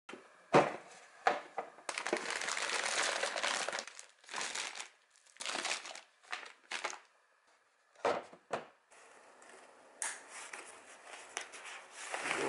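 Plastic snack packets and packing paper crinkling and rustling as food is handled and packed into a cooler box, with a few sharp knocks in between.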